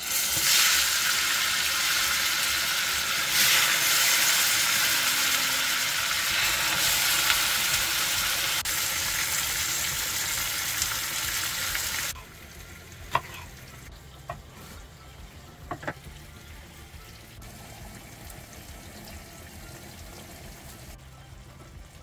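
Chopped tomatoes sizzling loudly in a hot frying pan as they are added. About twelve seconds in, the sizzle drops abruptly to a quiet simmer, broken by a few light clicks.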